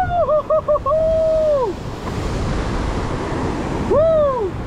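Surf breaking and washing against a rocky cliff, with wind on the microphone. Over it, a loud high held tone that wavers in the middle and falls away after about a second and a half, then a short rising-and-falling tone near the end.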